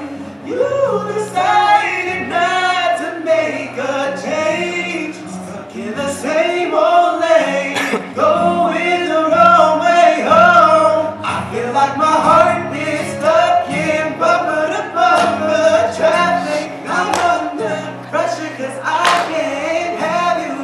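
A young man singing a song solo into a handheld microphone, amplified through the hall's speakers, over an accompaniment holding low sustained notes.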